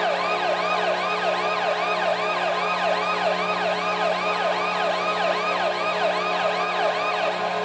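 Washington Capitals' arena goal horn: a steady low horn tone with a siren yelping up and down over it, about three sweeps a second.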